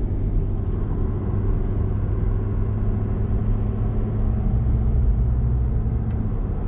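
Motor vehicle running at a steady pace, with a steady low engine hum and road rumble.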